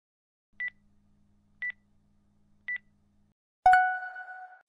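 Countdown timer sound effect: three short high beeps about a second apart, then a louder ringing chime that fades over about a second as the timer reaches zero.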